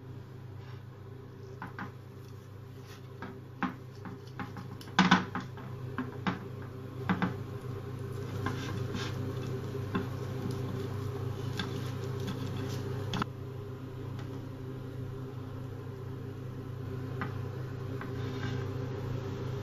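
Cookware and utensils clinking and scraping in scattered knocks, with a louder cluster about five seconds in, over a steady low hum.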